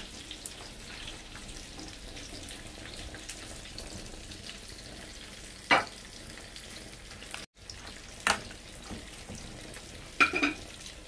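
Pot of pork broth simmering under a heap of bok choy leaves, with a steady bubbling crackle. A few sharp knocks come about six, eight and ten seconds in.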